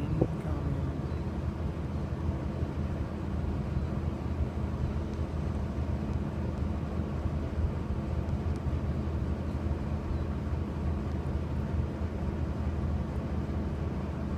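Steady low mechanical hum with several even droning tones over a constant rumble, with a brief tick near the start.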